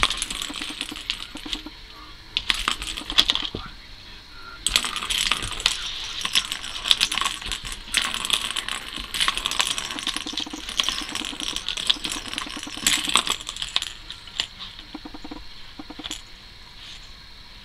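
Plastic ball rattling and rolling around inside a cat's circular track toy as the cat bats at it. It comes in bursts of clattering: two short ones at first, then a long one from about five seconds in to about fourteen, after which only a few light clicks remain.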